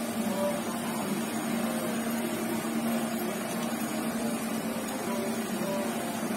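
Electric hair clippers buzzing steadily at one even pitch.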